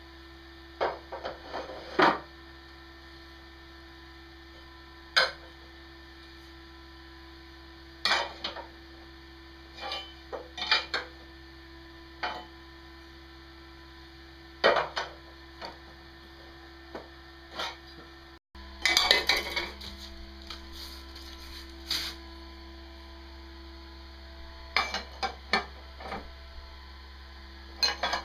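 Scattered metallic clinks and clanks of steel parts and tools being handled while a frame is fitted and bolted together, over a steady electrical hum.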